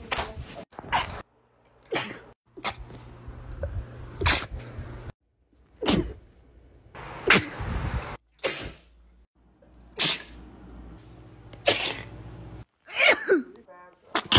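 A rapid series of sneezes, about a dozen, each short, sharp and sudden, with abrupt cuts between them.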